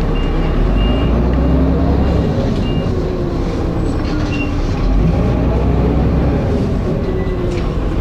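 Dennis Arrow double-decker bus's diesel engine heard from on board, running with heavy thrash and revving up and down, typical of its over-revving through a slipping ZF automatic gearbox. A few short high beeps sound in the first half.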